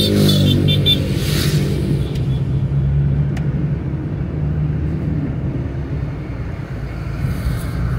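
Road noise heard from inside a car driving on a wet highway: a steady low engine and tyre rumble with a hiss of tyres on the wet road. A few short high beeps sound in the first second, and a brief louder hiss swells and fades about a second and a half in.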